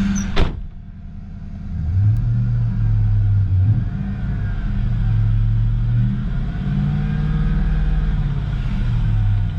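2003 Ford Mustang Mach 1's 4.6-litre twin-cam V8 running. A sharp knock sounds about half a second in, then from about two seconds the engine is revved and held at a few steady raised speeds, one after another.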